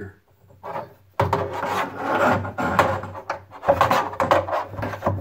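Plastic brine-line parts being handled and fitted: rough, irregular rubbing and scraping that starts about a second in.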